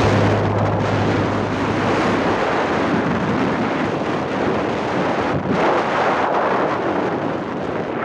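Wind rushing over the microphone of a moving vehicle travelling along a road, with road noise beneath it: a steady, loud rush with small swells.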